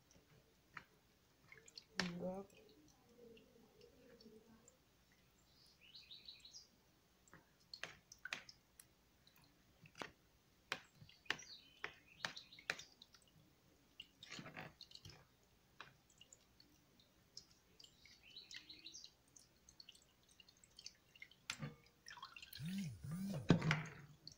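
Quiet kitchen sounds: scattered light clicks and taps and a few faint high chirps. Louder handling sounds build up near the end.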